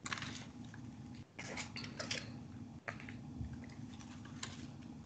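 Pages of a photo book being turned and handled, a few short crackly rustles over a steady low hum, heard through a video call's microphone.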